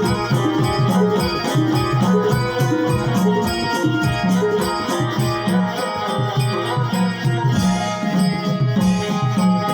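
Konkan jakhadi folk-dance music: a fast, steady drum beat with held instrument tones over it, without singing.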